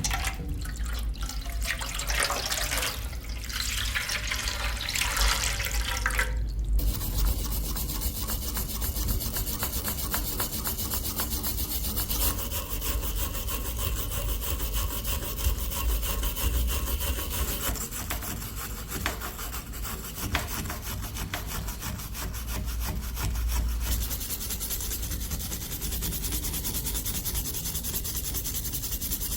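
Continuous abrasive rubbing against the rusty steel of an old hammer, over a steady motor hum, as in rust removal with a power tool. The scraping changes character about seven seconds in.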